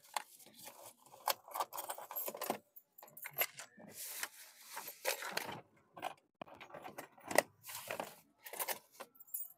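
A bunch of keys jangling and clinking in many short, irregular bursts, handled while hunting for the workshop key.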